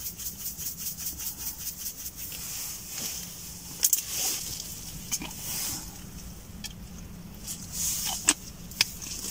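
Small camping gas stove running steadily under a cooking pot, with quick clicks and rattles from salt being shaken in over the first couple of seconds and a few sharp clicks and paper rustles as small packets are handled near the end.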